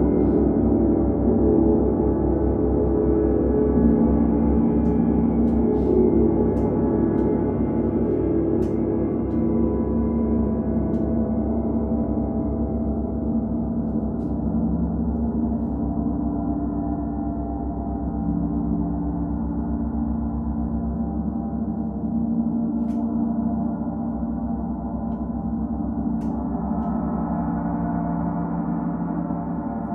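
Gongs played in a gong bath: a dense, sustained wash of many overlapping low tones that shift slowly and gradually fade, with the upper tones brightening again near the end.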